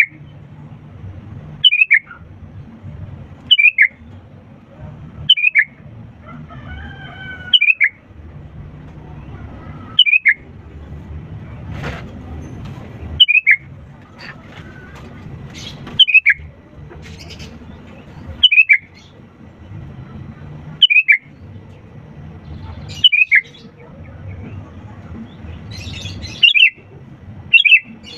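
Sooty-headed bulbul (kutilang) giving a short, loud, sharp call over and over, about every two to three seconds, over a low steady rumble.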